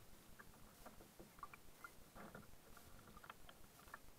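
Faint drips and small splashes of a kayak paddle dipping into calm water, with a small cluster of them a little after two seconds in.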